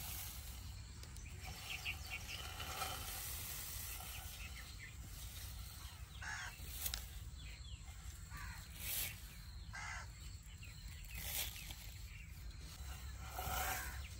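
Dry fine vermicelli strands crackling and rustling as hands break them up in a bowl, in short repeated bursts over a faint steady outdoor rumble.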